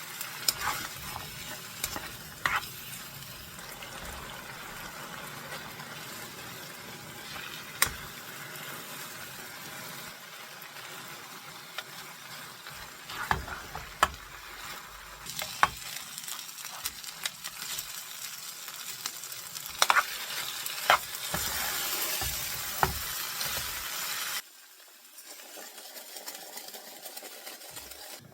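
Food frying and sizzling in a pan while it is stirred, with scattered clicks and knocks of a utensil against the pan. The sizzle cuts off suddenly near the end.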